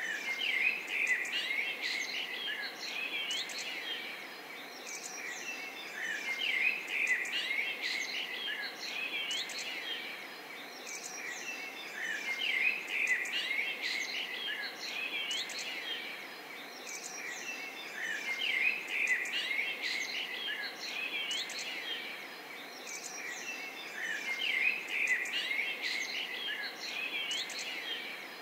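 Chorus of small birds chirping and twittering, swelling and fading about every six seconds.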